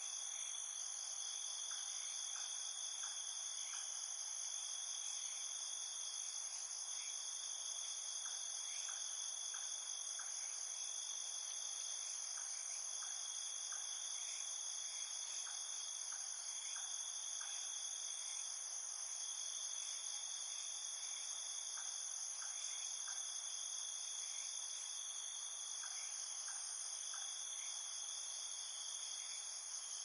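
Crickets chirping in a dense, steady chorus: a continuous high-pitched trill with faint scattered ticks beneath it.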